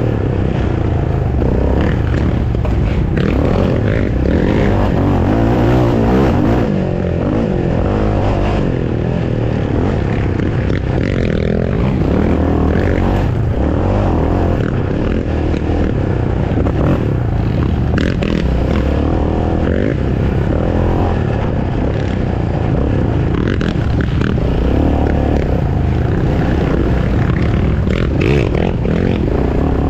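Racing ATV engine running hard under load from on board, revs rising and falling with throttle and gear changes, with scattered knocks and rattles from the machine over rough ground.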